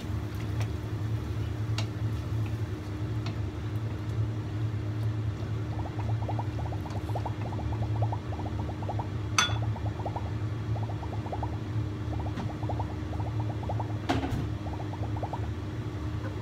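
A wooden spatula stirring sliced Korean rice cakes and cabbage in simmering broth in a wok: the liquid sloshes, with rapid runs of small ticks through the middle and two sharp knocks of the spatula on the pan, over a steady low hum.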